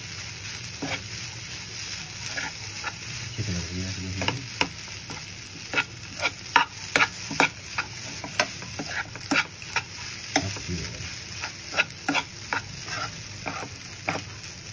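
Metal spatula scraping and clicking against a non-stick frying pan as fried rice is stirred and tossed, with irregular sharp knocks over a steady sizzle of frying.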